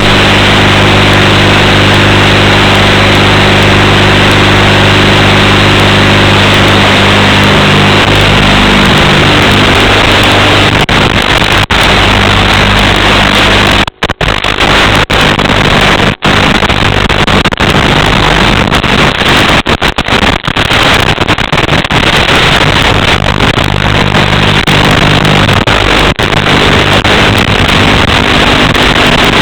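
Micro FPV drone's motors and propellers buzzing, loud and distorted. The tone holds steady for several seconds, then turns rougher and keeps changing, and it cuts out briefly a couple of times.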